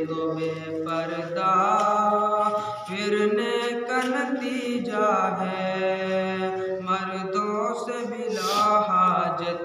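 A man singing an Urdu nazm solo into a microphone in long, wavering melodic lines, with brief pauses for breath.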